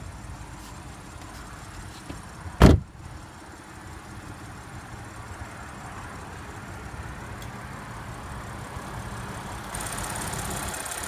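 Supercharged 3.0-litre V6 of a 2014 Audi Q7 idling steadily, growing louder near the end. A single loud clunk about three seconds in.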